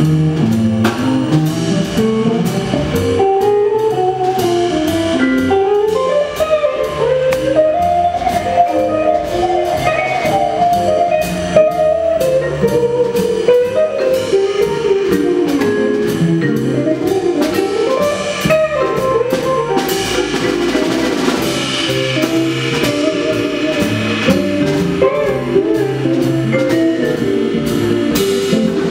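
Live jazz: an electric semi-hollow guitar plays a flowing single-note melodic line over a drum kit keeping time with steady cymbal strokes.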